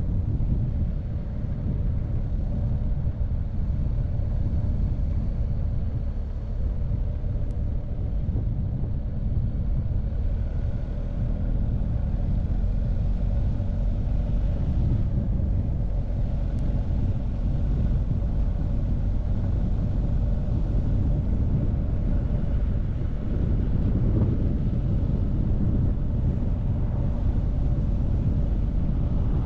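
BMW R1250GS boxer-twin engine running during a ride, heard as a steady low rumble with road noise and a faint steady hum.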